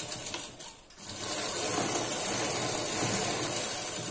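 HEMA sewing machine stitching a waistband seam onto a blouse. It runs unevenly for the first second, then steadily from about a second in.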